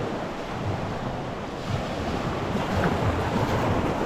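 Sea surf washing onto the shore, with wind buffeting the microphone as a steady low rumble.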